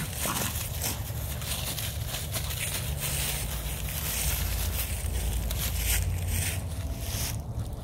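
Dry fallen leaves crunching and crackling under a pit bull puppy's paws and a ball as it scrambles around on them. Many small irregular crackles sit over a steady low rumble.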